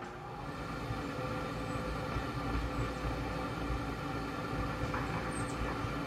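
Gas pack furnace's draft induction fan motor spinning up and running, a steady mechanical hum with several tones that grows gradually louder. It carries the odd noise from the exhaust port that the owner suspects is a fault in the draft inducer fan, perhaps corroded blades.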